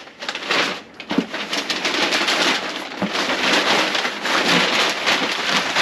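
Brown kraft packing paper crinkling and rustling as it is pulled out of a cardboard shipping box, a steady dense crackle with a short lull about a second in.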